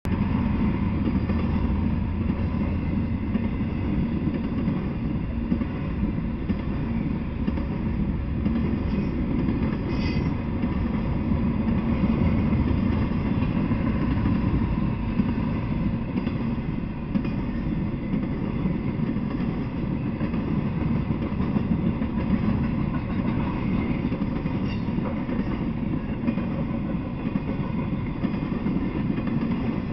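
Intermodal freight train rolling steadily past. Its flatcars carry highway trailers, and the wheels make a continuous low rumble on the rails.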